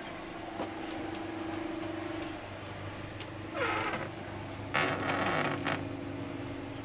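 Wardrobe door in a train sleeper cabin creaking as it is swung open, with a few light knocks, a falling creak about halfway through, and a short rustle a second later, over a steady low hum.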